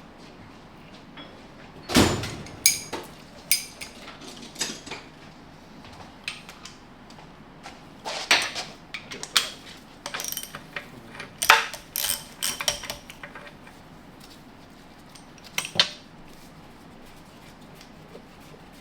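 Irregular metallic clinks and taps of hand tools and steel parts against an NV5600 transmission case as the shift rail detent is pulled out. There is a sharp knock about two seconds in, a flurry of clinks in the middle and one more near the end.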